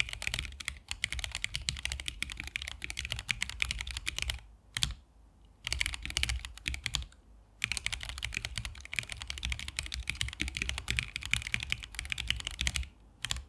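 Fast typing on a Corne split mechanical keyboard with stock Gateron Oil King switches and XDA PBT keycaps in a 3D-printed resin case: a rapid run of keystroke clicks. It breaks off briefly about four and a half and seven seconds in, and stops just before the end.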